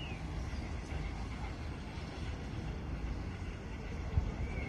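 LMS Jubilee class steam locomotive 45596 Bahamas approaching at a distance: a steady low rumble of the engine working, with a short knock about four seconds in. Birds chirp briefly at the start and near the end.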